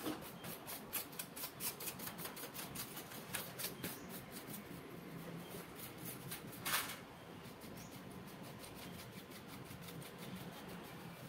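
A quick run of small, sharp clicks, several a second, with one louder click about two-thirds of the way through, then fainter ticks at an even pace.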